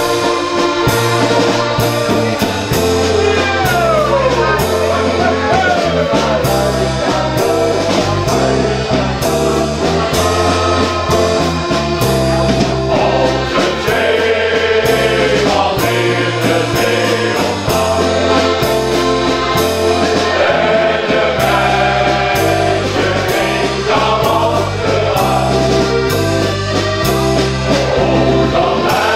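Men's shanty choir singing in unison over instrumental accompaniment with a steady beat and a stepping bass line.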